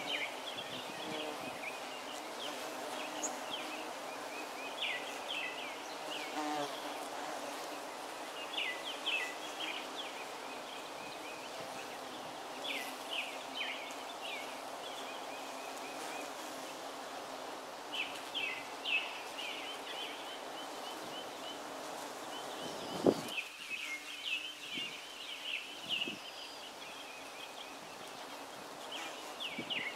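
Many bees buzzing in a flowering holly tree, a steady hum. A bird chirps in short clusters every few seconds over it, and a single thump comes about three-quarters of the way through.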